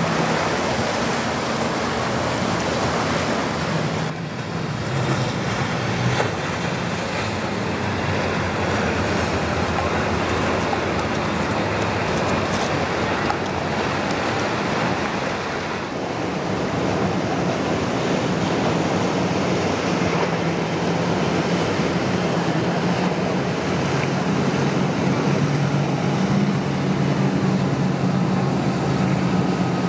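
Multiple outboard engines on center-console boats running at speed, a steady low drone under the rush and splash of hull spray and waves, with wind on the microphone. The sound changes abruptly twice as one boat gives way to the next.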